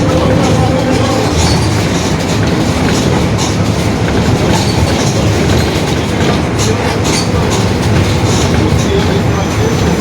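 Mercedes-Benz OF-1721 BlueTec 5 city bus under way: steady engine and road noise with many small rattles, and a whining tone that fades out about a second in.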